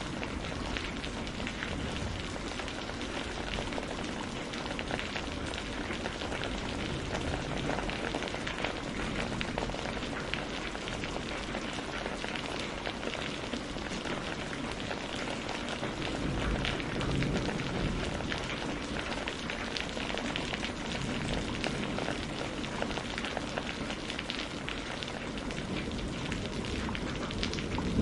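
Steady rain falling on a greenhouse roof, an even hiss dotted with many close drops ticking.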